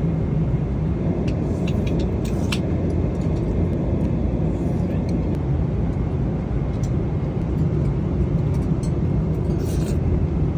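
Steady low roar of a jet airliner cabin in cruise, with a few small clicks of chopsticks against the meal dishes, a cluster about one to two and a half seconds in and another near the end.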